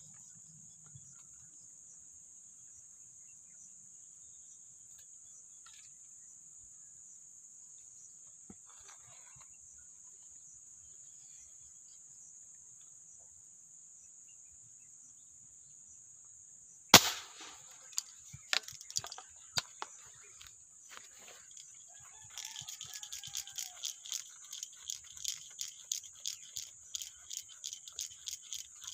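Steady high-pitched insect drone throughout. A bit past halfway, an air rifle fires once with a sharp, loud crack, followed by scattered clicks and rattles, and then a long run of rapid, regular ticking as the line is worked.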